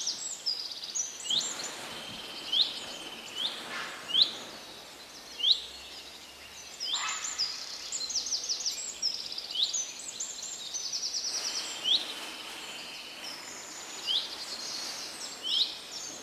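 Birds singing: one bird repeats a short upward-sweeping chirp about once a second, and quick high trills from other birds come in now and then, over faint background noise.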